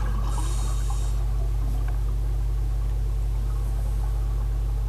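A steady low hum, with a brief hiss in the first second.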